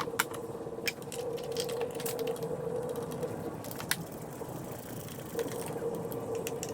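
Ratchet wrench clicking as it runs in the T30 Torx bolts that hold on a timing-belt cover, with a few sharper knocks among the clicks. A steady hum runs underneath.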